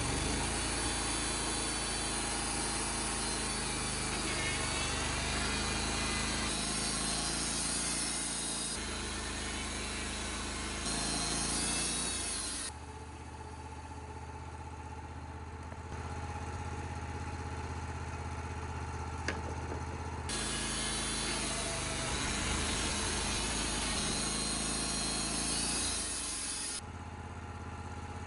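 Band sawmill running, its engine humming steadily while the band blade cuts through a cedar log with a hiss. The sound switches abruptly several times, and in a quieter stretch from about 13 to 20 seconds mostly the engine is heard.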